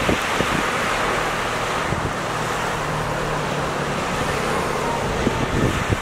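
Steady wind rumble on the microphone over the wash of the sea, with a faint low hum through the middle and a few light knocks.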